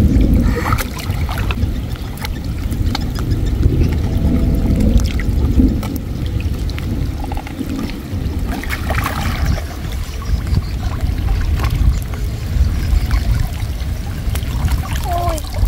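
Water sloshing and splashing as someone wades and handles a net-covered fish trap and a bamboo basket in shallow floodwater. Scattered short knocks and splashes stand out over a steady low wind rumble on the microphone.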